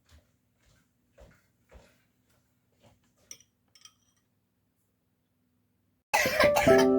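A few faint, short coughs from a sick young child. About six seconds in, background music starts loudly.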